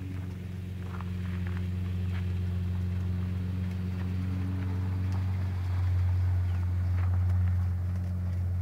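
A motor running steadily with a low drone, a little louder from about six seconds in, with a few faint hoof clops.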